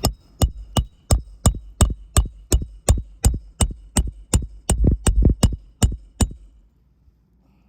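Hammer striking metal in quick, steady blows, about three a second, each with a slight metallic ring, nearly twenty in all before stopping about six seconds in.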